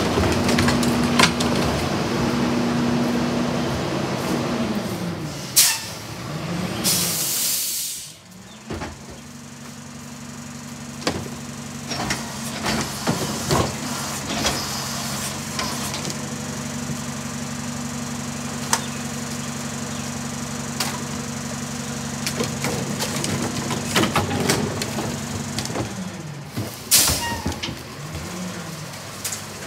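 Heil DuraPack 5000 rear-loader garbage truck working its packer: the engine holds steady at raised revs, then drops back twice. Each time a short, loud burst of air hiss follows, about seven seconds in and again near the end, while plastic carts knock and bang against the hopper.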